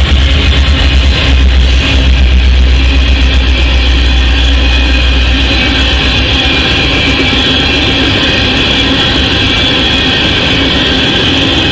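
A freight train passes close by. The lead diesel locomotives' deep engine rumble is loudest for the first half, then fades as a string of tank cars rolls past with steady, high-pitched wheel-on-rail noise.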